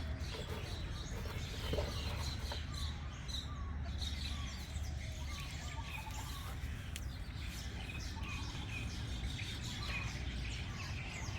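Small birds chirping, with many short, quick downward chirps repeating throughout, over a steady low rumble.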